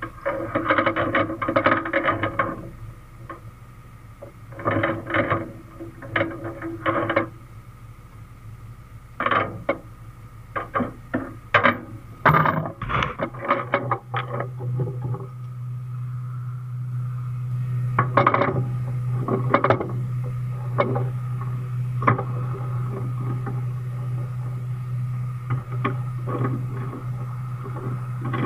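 Steel tie-down chain clinking and clanking as it is handled and hooked onto a bulldozer's undercarriage: a run of sharp metallic clanks with brief ringing. A steady low hum comes in about halfway through.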